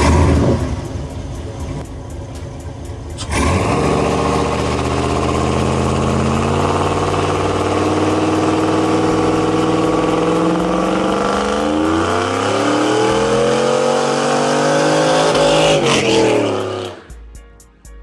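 Modified exhaust of a GMC Sierra pickup: a loud burst right at the start that fades, then a steady engine note that climbs in pitch as the truck accelerates, cutting off suddenly about a second before the end.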